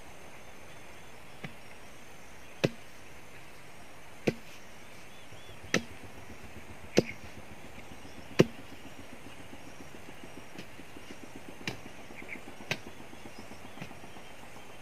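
Hand-tool blows chopping at the base and roots of a tree stump to uproot it. There are six sharp strikes about a second and a half apart, the loudest near the middle, then a few lighter taps near the end.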